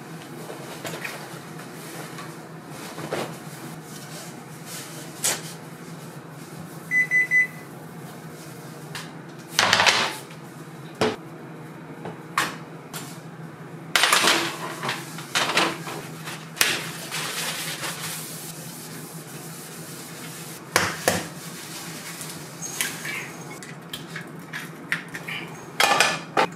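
Kitchen work on a counter: dishes, utensils and bottles knocked and set down in separate clatters over a steady low hum, with a short electronic beep about seven seconds in. Near the end a munchkin cat gives a short, sharp cry.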